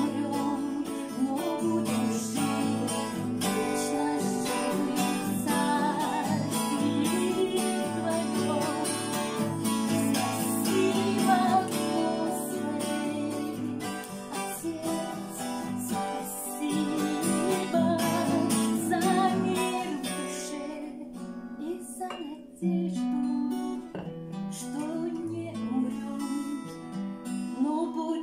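Acoustic guitar music, strummed and picked: an instrumental passage of a slow Christian worship song. It thins out for a few seconds about twenty seconds in.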